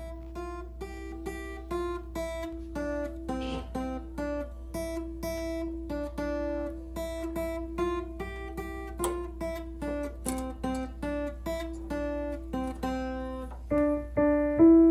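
Background music: plucked acoustic guitar notes in a steady picking pattern, over a low steady hum.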